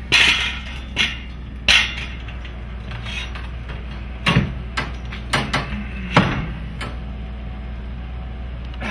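A series of sharp knocks and clunks from a one-piece wooden garage door with no springs being pushed up by hand and propped on a metal pole. There are three in the first two seconds and a tighter group between about four and six seconds in.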